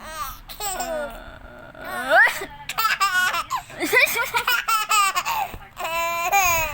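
Baby laughing in repeated bursts of high-pitched giggles, set off by fake sneezes, with a sharp rising vocal glide about two seconds in.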